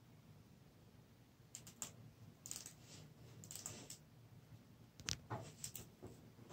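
Faint, scattered clicks and taps from hands gripping and shifting a framed print, coming in small clusters with a slightly louder knock about five seconds in.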